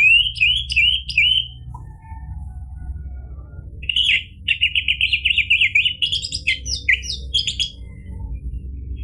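Orange-headed thrush singing in full voice: a short run of quick, falling high notes at the start, then, about two and a half seconds later, a longer rapid twittering phrase of high notes lasting about four seconds. A steady low hum runs beneath.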